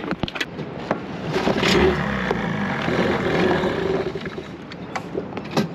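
Small outboard motor on an inflatable dinghy being pull-started: the cord is yanked, and the engine turns over and runs unevenly for a couple of seconds, then dies down about four seconds in. This is one of several pulls it takes to get started.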